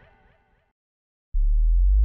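The end of a pop song with a sung, wavering melody fades out, then there is silence for about half a second. About 1.3 seconds in, a loud, deep, steady drone starts abruptly.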